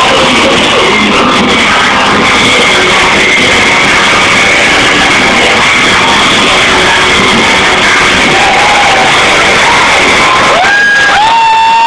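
A live heavy rock band plays with distorted electric guitars and drums, recorded so loud that it overloads into a flat, saturated wash. Near the end, one sustained note slides up and is held for about two seconds.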